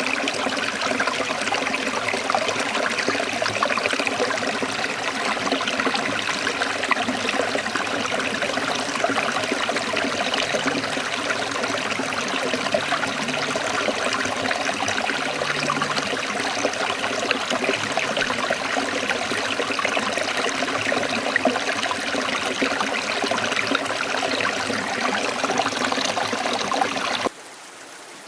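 Water flowing and trickling steadily, like a small stream. About 27 seconds in it cuts off abruptly, leaving a much quieter, duller hiss.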